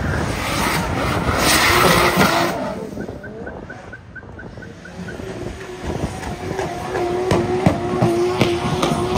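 Drift car sliding with its tyres screeching and its engine at high revs, fading away after about two and a half seconds. From about six seconds a high, steady engine note returns, broken by sharp pops and crackles.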